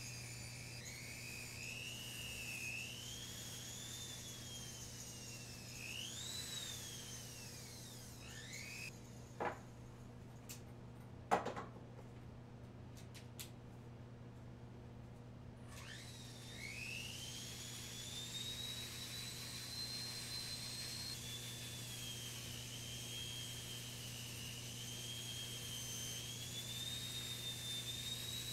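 A flexible-shaft rotary tool whines at high speed while polishing a steel grenade body, its pitch sagging and rising as it is pressed on and eased off. It stops about a third of the way in, two sharp knocks follow, and then it spins back up to a steady whine that wavers under load until the end.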